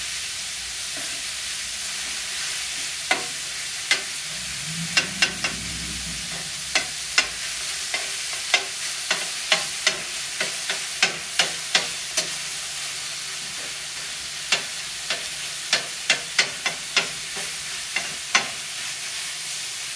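Ground turkey breast frying with a steady sizzle on a hot griddle, while a spatula scrapes and taps against the griddle top in sharp, irregular clicks through most of it.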